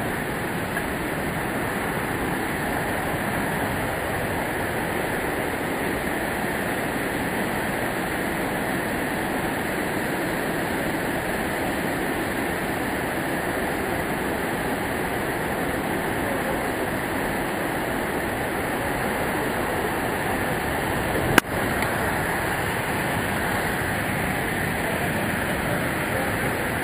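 Steady rushing of the Savica waterfall's falling water, even and unbroken. A single sharp click about three-quarters of the way through.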